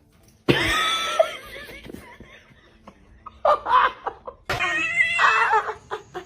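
Laughter mixed with a cat's cries: a sudden loud cry about half a second in, rising and then falling over about a second and a half, followed by more wavering cries and laughing sounds in the second half.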